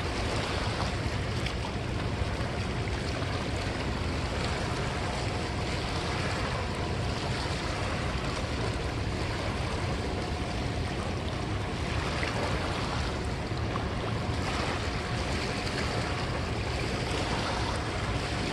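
Steady rushing of choppy river water along a rocky bank, mixed with wind on the microphone.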